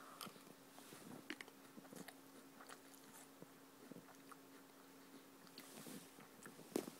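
Faint chewing of a mouthful of chocolate Cheerios in milk: soft crunches and wet crackles, with a sharper click near the end, over a steady low hum.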